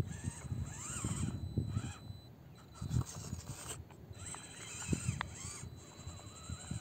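Electric motor and drivetrain of a 1:18 Absima CR-18 Pro Hunter RC crawler whining in short spurts, rising and falling with the throttle as it crawls over rock, with scattered low knocks.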